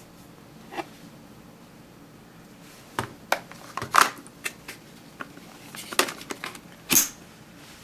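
Scattered sharp plastic clicks and short handling rustles as an instax mini film pack is loaded into a Fujifilm Instax 500AF camera.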